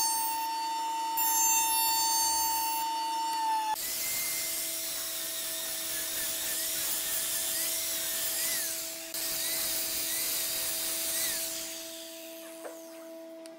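A jointer planer runs with a steady whine as a wooden frame is fed over it. About four seconds in, it gives way to a handheld angle grinder working on wood: a high, rough whirr with a wavering whine that tails off near the end.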